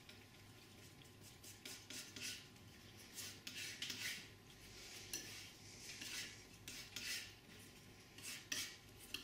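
Flexible pointed painting knife scraping and mixing oil paint on a palette: faint, irregular short scrapes, several a second at times.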